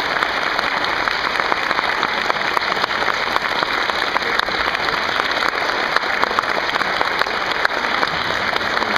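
A large audience of schoolchildren and adults applauding steadily, many hand claps blending into one continuous sound.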